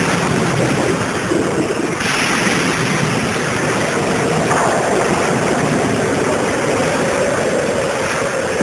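Loud, steady rushing noise, like rushing water or wind, over an intro logo. About four and a half seconds in, a tone slides down and then holds low.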